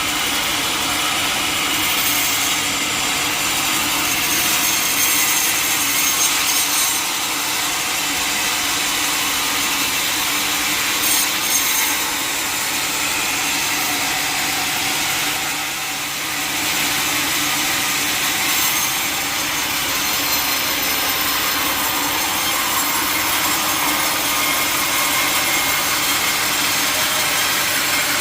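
Sawmill saw cutting through a large mahogany log, a steady sawing sound strongest in the high end, with the machine's steady hum beneath. It dips briefly about halfway through.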